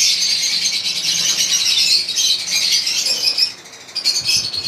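A flock of caged lovebirds chattering and chirping in a dense, high-pitched din that thins out about three and a half seconds in to a few separate chirps.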